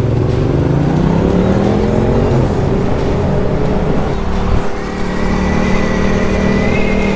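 Motorcycle engine accelerating, its pitch climbing for about two seconds, then holding a steady cruise. A thin steady high whine joins about five seconds in.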